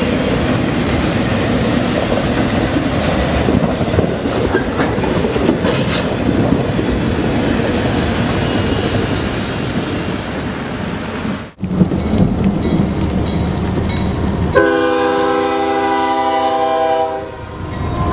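Freight train of autorack cars rolling past, with a steady rumble and wheels clattering over the rail joints. After a cut there is a lower rumble, then a locomotive horn sounds one long blast of about two and a half seconds near the end.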